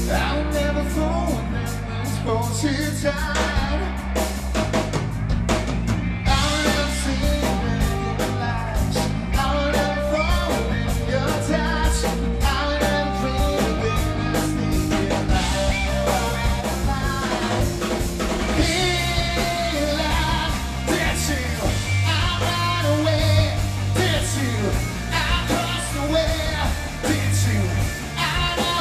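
Live rock band playing: a male singer over electric guitar, bass and a drum kit, with fast cymbal strokes under the song.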